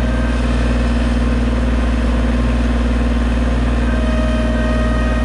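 Engines of a Bobcat compact track loader and a small Kubota mini excavator running steadily at close range, a deep constant hum. A thin steady whine joins about four seconds in.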